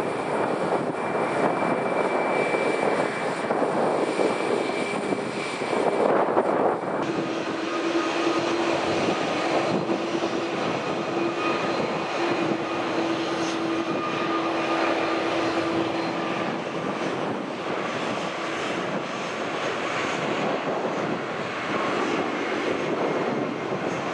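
Jet airliner engines running loud: a steady rushing noise with thin whining tones over it. The sound changes abruptly about seven seconds in.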